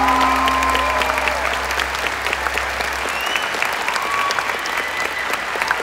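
Audience applauding in a large arena while the last held chord of the music dies away over the first three seconds, leaving only clapping.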